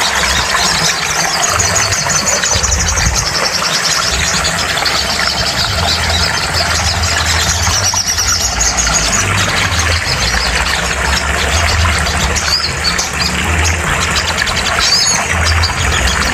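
Sogon (sogok ontong) birds singing rapid, high chirping trills without pause, over steady hiss and a low pulsing hum. It is a song recording played to a caged sogon to get it singing.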